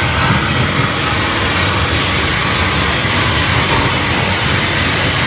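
Loud, steady wall of electronic noise music played live through a PA, dense from low rumble to high hiss, with no clear beat or melody.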